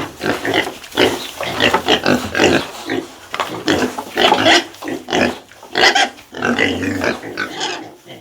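Pigs vocalising in a rapid, irregular string of short, loud calls.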